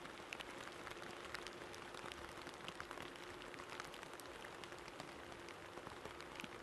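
Faint patter of light rain, many small irregular ticks over a soft hiss, with a faint steady hum underneath.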